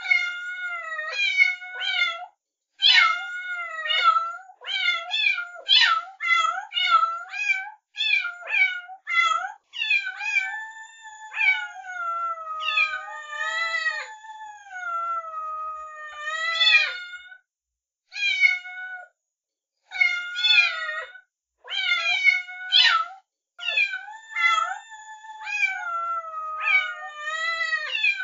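Kittens mewing over and over in high, thin calls. There are two or three short mews a second, and through the middle a few longer calls that slide down in pitch.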